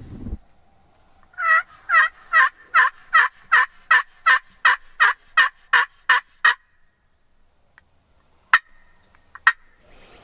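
Turkey friction pot call worked with a wooden striker, sounding a long, even series of about fourteen hen yelps, followed by two short sharp notes near the end.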